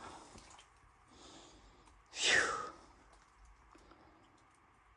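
A person's single heavy, breathy sigh about two seconds in, with faint scattered small clicks and rustles after it.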